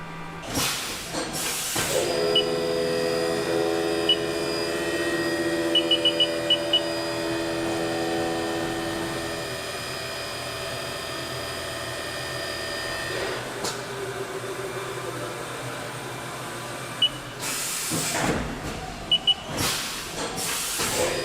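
CNC milling machine running a cut: a steady whine from the spindle and cutter in several pitches, with a few short bursts of hiss near the start and near the end.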